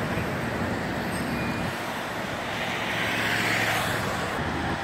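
Steady road traffic noise, with one vehicle passing more loudly about three seconds in.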